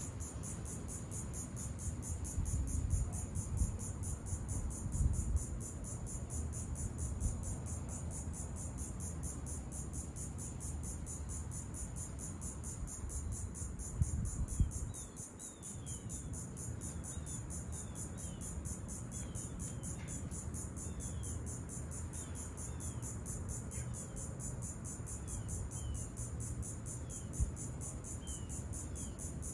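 Insects trilling in a steady, high, rapidly pulsing chorus over a low rumble that swells and eases. A few faint short chirps come in during the second half.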